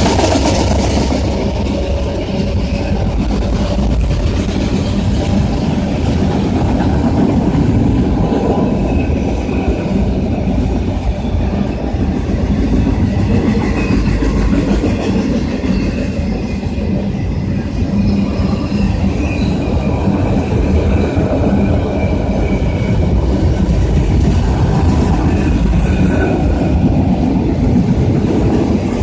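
Train cars rolling past, wheels clacking over the rail joints with a steady rumble, and faint high wheel squeal coming and going.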